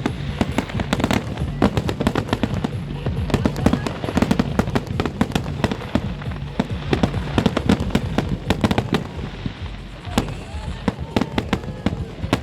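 A large fireworks display going off in a rapid, continuous barrage of bangs and crackles, many reports a second, thinning slightly about ten seconds in.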